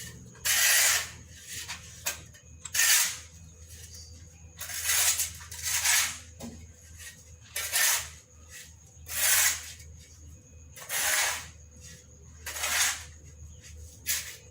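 A series of short hissing noise bursts, about eight, each lasting about half a second and coming every second or two, over a low steady hum.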